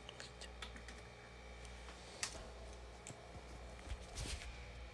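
Faint, scattered small clicks and ticks from a pet gray squirrel moving about in its wire cage, with a short rustle about four seconds in.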